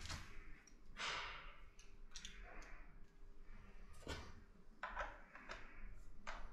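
A Kuchenreuter flintlock-era bellows air rifle firing about a second in: a single brief burst with a short fading tail. Then several small clicks and knocks as the gun's mechanism is handled for reloading.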